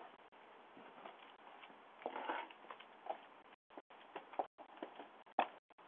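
Faint irregular footsteps and scuffs on a concrete walkway, heard through a Ring video doorbell's microphone with its steady hiss and a few brief audio dropouts.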